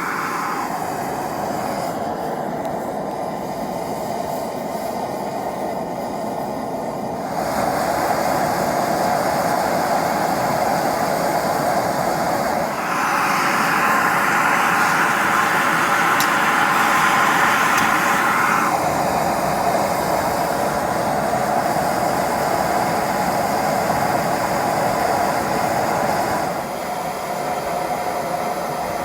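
Gas burner of a small metal-melting furnace running steadily, heating a crucible as the furnace warms up. The roar shifts in tone a few times, brighter and louder from about 13 to 19 seconds in.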